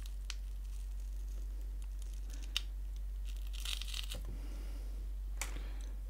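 An iPhone 5C battery being prised out with a plastic pry tool: faint clicks from the tool and, about three and a half seconds in, a short scratchy tearing as the battery's adhesive lets go. A low steady hum runs underneath.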